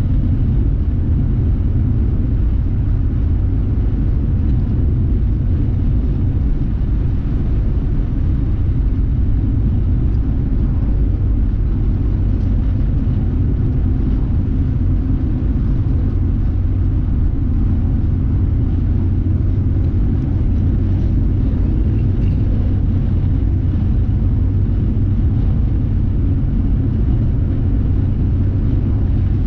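Steady low rumble of a car driving at highway speed, tyre and engine noise heard from inside the cabin.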